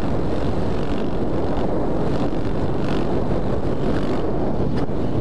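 Heavy wind rush buffeting the microphone, mixed with a supermoto motorcycle's engine running steadily in fourth gear at road speed.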